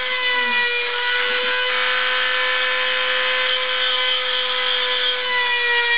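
Rotary-tool spindle of a homemade CNC router running at about 30,000 rpm as its small bit mills 3 mm plywood: a steady high whine with cutting noise, its pitch dipping slightly about five seconds in.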